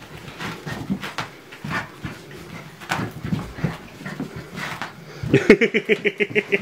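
A raccoon and a puppy play-fighting: scuffling, panting and grunting noises. Near the end comes a fast run of high, whimpering animal calls, several a second.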